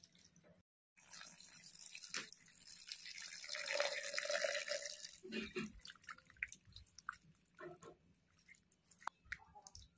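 Water poured in a stream into a metal kadai of fish pieces in spice paste, starting about a second in and running for about four seconds. After that come scattered small wet splashes as a hand mixes it in.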